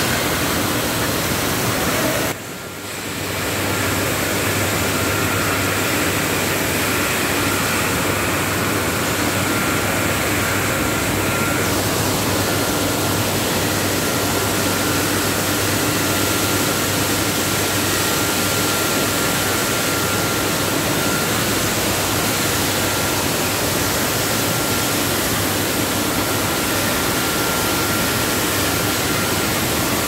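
Live-chicken crate washing machine running: a steady rush of water spray over a low machine hum, with a thin steady whine. The sound drops out briefly about two and a half seconds in.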